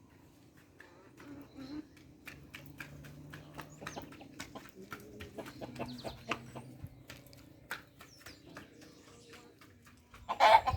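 Domestic chickens clucking, with many short sharp ticks throughout. A short, loud burst of sound comes near the end.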